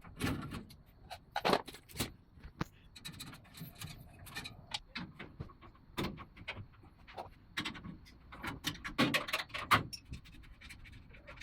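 Pliers working the wire connectors off the smoke purifier's filter unit: irregular small metal clicks and handling knocks, a few of them sharper.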